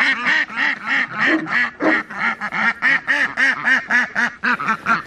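A flock of Indian runner ducks quacking in a fast, continuous run of overlapping quacks, about four or five a second.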